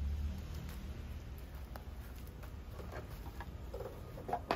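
Faint knocks and clicks of wooden shields being handled and set down, over a low steady rumble, with a sharper knock near the end.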